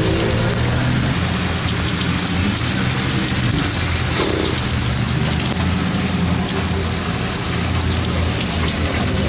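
Heavy rain hissing steadily on wet tarmac, with supercar engines running low as cars drive slowly past; a brief higher engine note about four seconds in.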